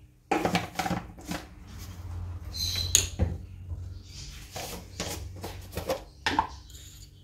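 Rustling and light clattering as kitchen things are handled, with a few sharp clicks and knocks spread irregularly through it.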